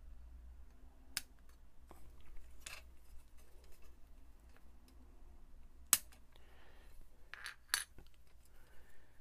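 Sprue nippers snipping plastic model-kit parts off the sprue: several sharp clicks, the loudest about six seconds in, with light rustling of the plastic runners being handled between cuts.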